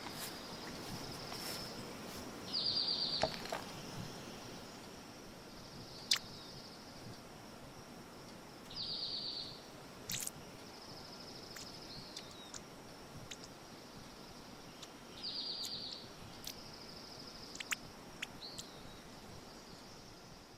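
Quiet outdoor nature ambience: a faint steady hiss with a short bird trill that comes three times, about six seconds apart, and scattered sharp chirps.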